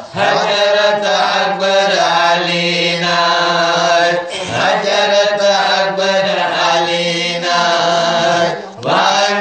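A group of men chanting a Manipuri marifat, a Sufi devotional song, together in long drawn-out phrases over a held low note. The phrases break briefly about four seconds in and again near the end.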